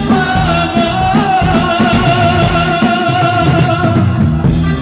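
A live band playing: a male singer singing into a microphone over electric guitar and a drum kit.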